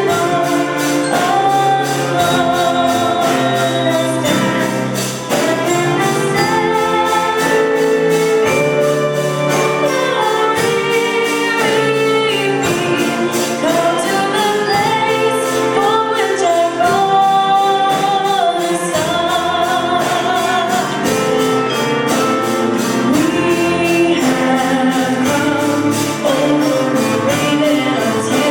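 A choir singing with instrumental accompaniment over a steady beat, in a gospel style.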